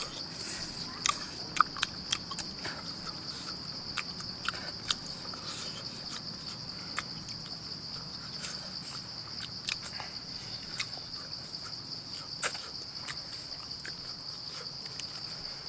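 Steady, high-pitched insect drone that holds one unbroken tone, with scattered sharp clicks and ticks over it; the loudest clicks come in the first two seconds.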